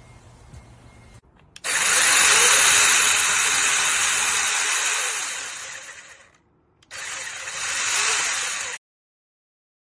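WORFCI 8-inch battery-powered brushless mini chainsaw running in two bursts. The first run lasts about three seconds, then winds down and stops. A shorter second run cuts off suddenly.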